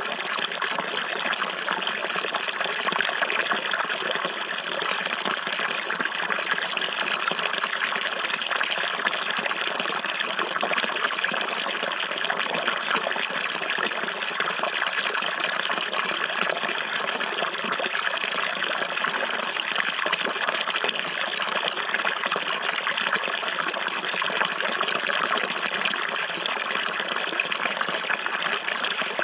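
Running water, a steady unbroken trickling and splashing rush with no changes.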